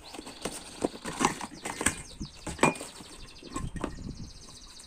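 Packaging rustling and crackling in irregular bursts as a parcel is opened by hand to get a drink bottle out.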